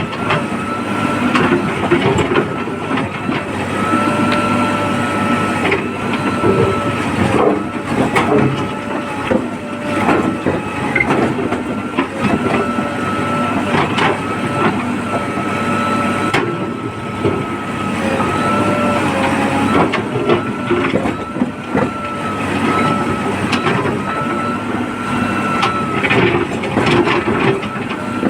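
JCB backhoe loader working, its diesel engine running steadily under load with a high hydraulic whine that cuts in and out every couple of seconds as the arm moves, and scattered knocks of mud and metal.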